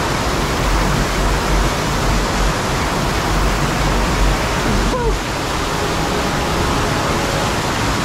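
Waterfall: a loud, steady rush of water falling over rock, with a brief dip about five seconds in.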